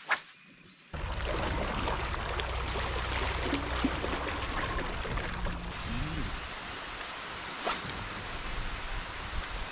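Steady rush of falling water from a waterfall, cutting in suddenly about a second in after a sharp click.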